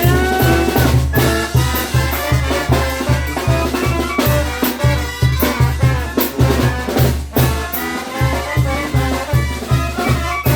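Mexican banda brass band playing an instrumental: trumpets and trombones carry the melody over a steady, even bass beat.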